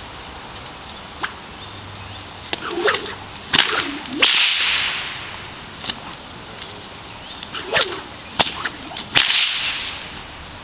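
Bullwhip swung and cracked in two quick runs about five seconds apart. Each run has a few swishes and several sharp cracks, and the loudest cracks leave a short hiss trailing after them.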